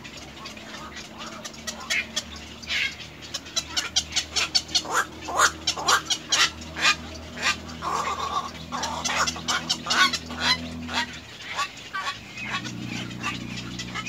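Little egret nestlings calling at the nest: rapid, irregular chattering calls, several a second, building after a couple of seconds and loudest in the middle.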